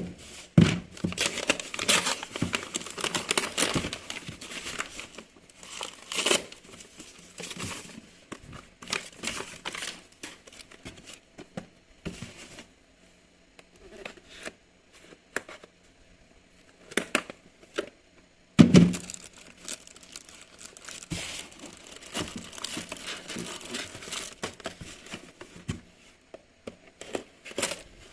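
Packaging crinkling and tearing by hand in irregular bursts, with a quieter pause partway through and a sharp thump about two-thirds of the way in.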